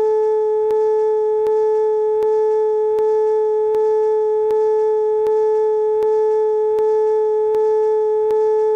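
Steady electronic test tone, one unbroken pitch held throughout, with faint ticks about every three-quarters of a second, sounding with a BBC test card.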